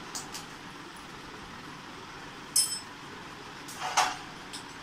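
A small metal part clinks once with a short bright ring about halfway through, then a clear plastic bag crinkles briefly near the end, over a steady low background.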